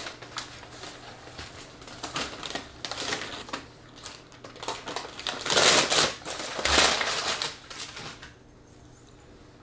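Paper fast-food bag and food wrappers rustling and crinkling as food is taken out, with many small clicks and taps; two louder bursts of paper rustling come about five and a half and seven seconds in.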